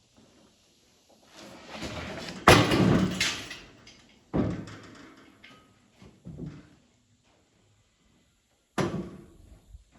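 A series of heavy bangs and thuds with near silence between them. A rising rush of noise leads into the loudest bang about two and a half seconds in, and further thuds follow at about four, six and nine seconds.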